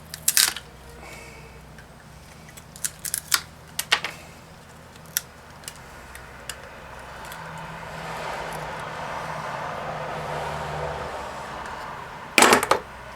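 Hand tools clicking and knocking against a Flojet water pump while its rubber cover is being worked off: scattered sharp clicks early on, a stretch of scraping in the middle, and a loud cluster of knocks near the end.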